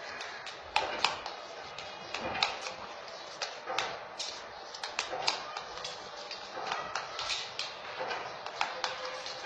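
Irregular clicking and tapping of a utensil against a small plastic bowl as orange block-printing paste is stirred, a few uneven knocks each second.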